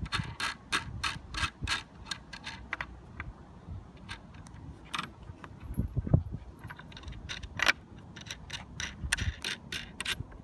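Steel nut being spun by hand onto a threaded 3/8-inch bolt against a washer: a run of light metallic clicks, a few a second, that thins out for a couple of seconds and then picks up again. A couple of dull knocks come in around the middle.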